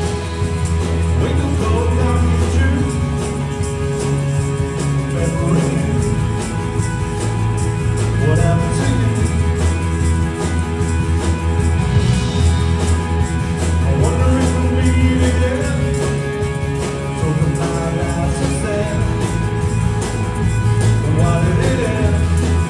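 Live band playing a song with a steady beat and strong bass notes.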